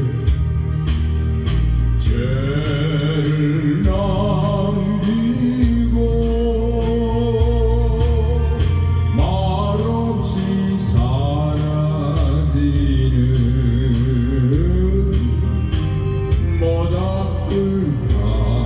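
A singer singing a Korean song over a backing track with bass and a steady beat, holding long notes with vibrato.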